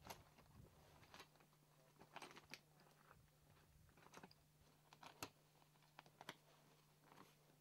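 Faint, irregular crunches and clicks of a dome ground tent being pitched by hand: fabric rustling and poles and clips knocking, a dozen or so scattered sharp ticks over a low steady hum.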